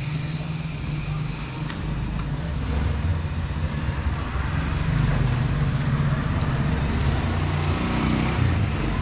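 A steady low engine rumble, with a few faint sharp clicks.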